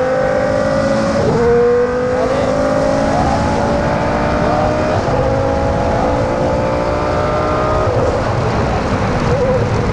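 Prost Formula 1 car's V10 engine running hard at high revs. Its pitch climbs steadily, drops back briefly at a gear change about a second in, then keeps climbing until about eight seconds in, when the note breaks up and wavers.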